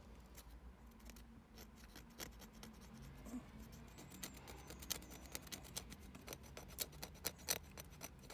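Faint short scratching strokes of old paint being scraped off a small enamel sign, sparse at first and coming more often in the second half.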